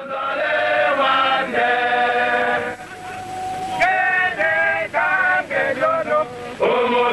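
A group of soldiers singing a chant together in unison: phrases of long held notes, with a short lull about three seconds in.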